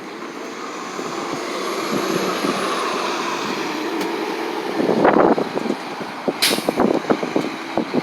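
Transit bus going by, its engine drone building over the first few seconds, with a short sharp hiss of air about six and a half seconds in and gusty wind on the microphone after.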